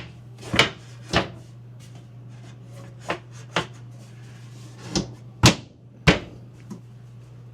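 Sharp knocks and clunks, about seven of them unevenly spaced, from a homemade shelf being fitted into place over a stacked RV washer-dryer. A steady low hum runs underneath.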